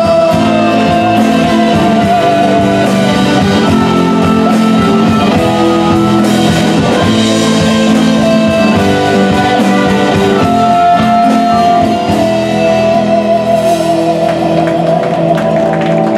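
Live band playing a rock-style song: guitar and drum kit with keyboard, loud and full, the bass thinning out about twelve seconds in.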